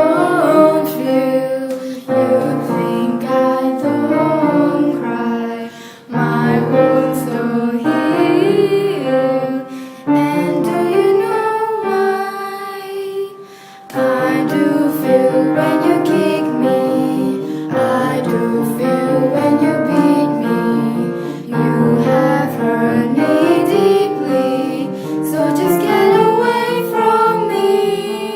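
A song: a female voice singing a slow melody over instrumental accompaniment, in phrases a few seconds long.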